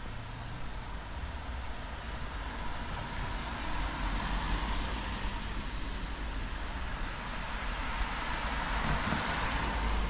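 Cars passing on a wet road: steady tyre hiss and engine rumble, swelling as one car goes by about four seconds in and another near the end.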